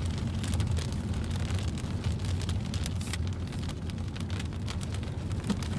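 Raindrops ticking irregularly on the windshield and roof of a moving car, over the car's steady low road rumble.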